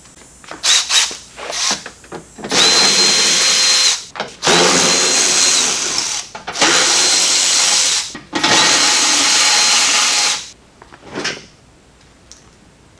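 A cordless power driver run four times in bursts of about a second and a half each, a steady high whine in every run, backing out the fasteners of the car's plastic belly pan. A few short clicks come just before the first run.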